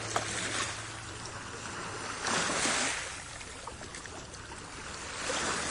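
Wood fire burning on a cast-iron Dutch oven: a rushing hiss that swells twice, with a few faint crackles and a light knock just after the start.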